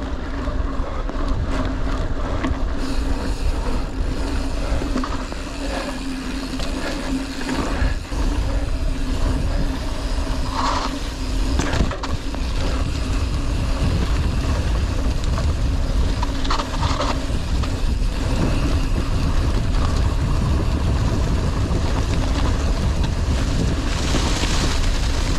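Mountain bike ridden along a trail, heard from a camera on the bike or rider: a steady low rumble of wind and tyre noise on the microphone, with rattles and a few brief higher scrapes.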